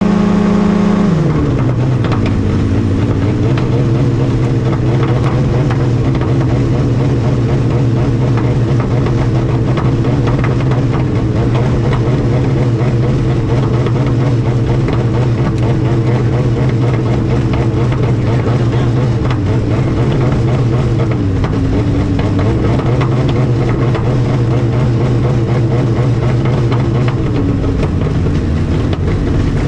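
Light aircraft engine heard from inside the cockpit. About a second in its pitch drops sharply, then it runs on steadily at the lower speed with a couple of brief dips, a loss of power during an in-flight engine failure.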